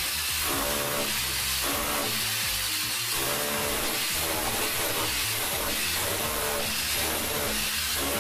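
Electric chipping hammer driving a pointed chisel into a plastered masonry wall to cut a channel for a water pipe, running steadily without a pause.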